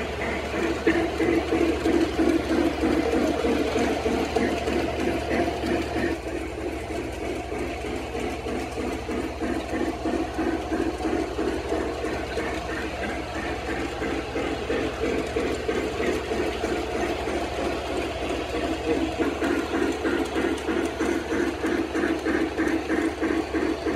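Model-railroad steam locomotive pulling Christmas cars along shelf-layout track: a steady, rhythmic mechanical clatter of about three beats a second over a low hum.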